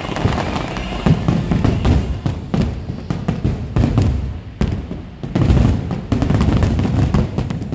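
Aerial fireworks shells bursting in rapid succession, a dense barrage of bursts with deep booms, with the show's music playing underneath.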